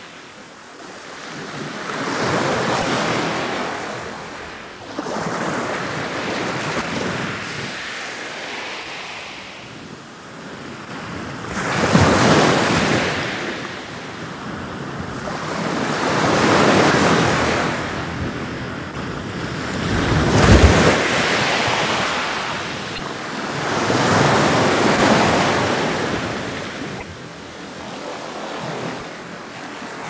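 Ocean surf: waves washing in one after another, each a rushing hiss that swells and falls away, about every four seconds. The strongest two come about twelve and twenty seconds in.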